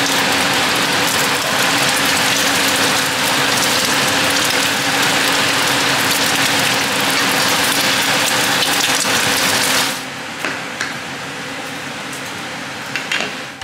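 Beef bacon and eggs sizzling loudly in a frying pan, a steady dense crackle. About ten seconds in it gives way to a quieter stretch with a few faint knocks of a knife cutting an orange on a wooden board.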